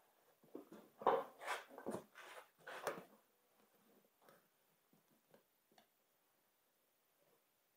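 Screwdriver prying a snowblower tire's rubber bead over its steel rim: a run of scraping and rubbing noises between about half a second and three seconds in, then faint scattered taps and rubs.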